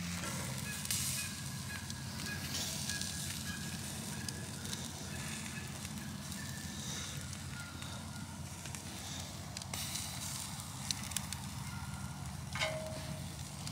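Campfire crackling under a steel grill grate, with bacon and a burger patty sizzling over the coals. A few sharp clicks near the end as metal tongs work the patty on the grate.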